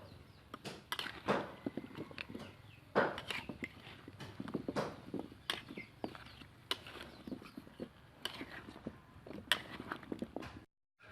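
Kitchen prep work: irregular knocks, taps and clatters of a knife and utensils on a wooden board and dishes. The sound cuts out briefly near the end.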